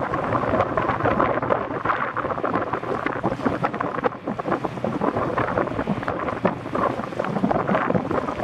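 Coco Yachts Coastal Cruiser 300 high-speed catamaran ferry running past at speed, a steady crackling rush of engine and wake, with wind buffeting the microphone.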